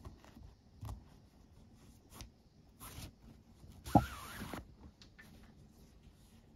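Nylon paracord rustling and rasping as it is handled and drawn through macramé knots by hand, with a few faint ticks. About four seconds in comes a sharp click, the loudest sound, followed by about half a second of rasping as a cord is pulled tight.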